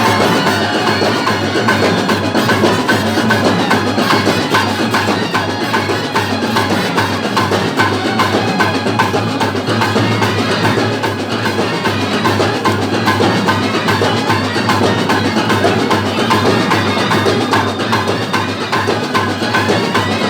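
Loud percussion music: drums beaten in a fast, dense, unbroken rhythm.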